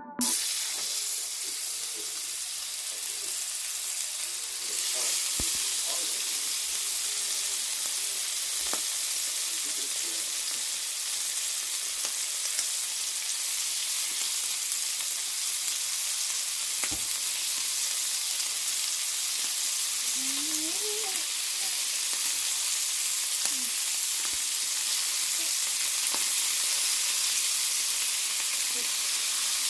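Lamb chops sizzling steadily in a hot pan, the frying growing louder about five seconds in, with a few light clicks.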